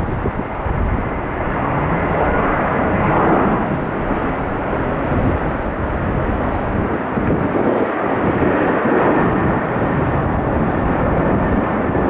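Boeing 737-900's twin CFM56 jet engines at takeoff power, a steady loud roar with wind gusting on the microphone.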